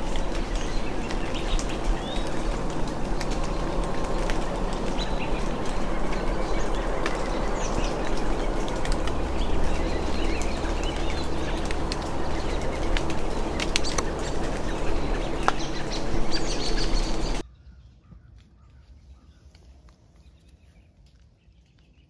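Dawn outdoor ambience: birds chirping and calling over a steady rushing noise, with a few small clicks. About three-quarters of the way through it drops abruptly to a much quieter background with only faint calls.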